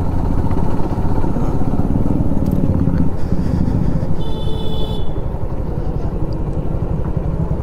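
Motorcycle engine running steadily at low road speed as the bike slows down, heard from the rider's seat.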